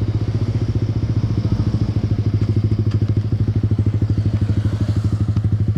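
Yamaha motorcycle with an SC Project aftermarket exhaust idling steadily, its exhaust beats coming as an even, rapid pulsing with no revving.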